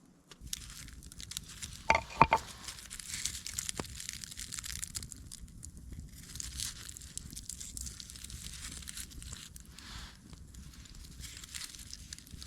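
Close rustling and crinkling with a few sharp snaps about two seconds in.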